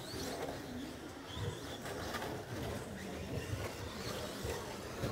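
Electric RC short-course stock trucks running on an indoor track: brief high motor whines, one rising right at the start, and a few light knocks over a low, uneven background murmur.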